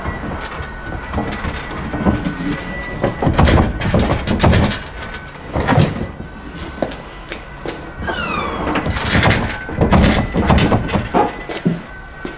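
Dacia Duster tailgate with its inner trim off, rattling and clunking in irregular bursts as it is moved. There is a short falling squeak about eight seconds in. The rattle is the one the owner traces to loose metal pieces inside the tailgate.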